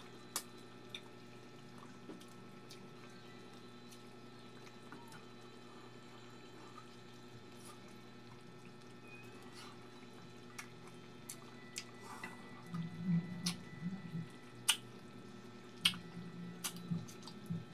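Close-miked mukbang eating sounds: scattered wet mouth clicks and lip smacks from chewing and sucking food off the fingers, over a faint steady hum. The clicks and chewing come thicker and louder in the last few seconds.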